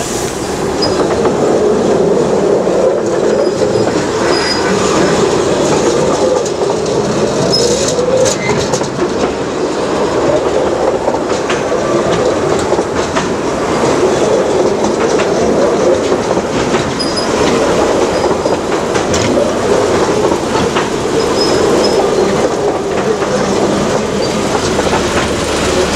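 Rake of 15-inch-gauge passenger carriages rolling slowly past, shunted by a small diesel locomotive: a steady rolling rumble of wheels on rail with occasional clicks.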